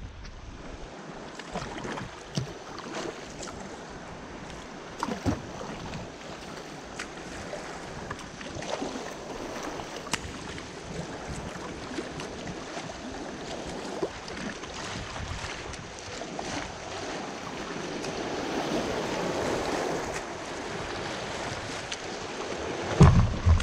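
Kayak running a shallow river riffle: rushing, splashing water around the hull with scattered sharper splashes, the water noise building as the chop gets rougher. Near the end come a few loud low thumps, which fit the hull striking a rock.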